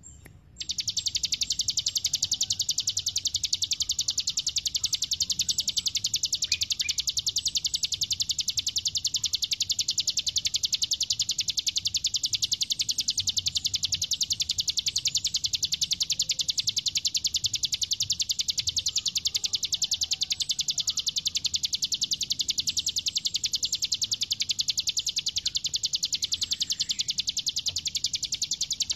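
A small songbird singing a fast, unbroken trill of sharp, high-pitched repeated notes. This is the rapid 'tembakan' (machine-gun) style used on masteran tapes for training cage songbirds. It starts about half a second in and runs without a break to the end.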